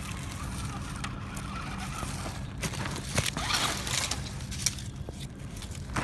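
Loose rocks and gravel crunching and clicking in scattered sharp ticks, with a louder scraping rush about three and a half seconds in, over a steady low rumble.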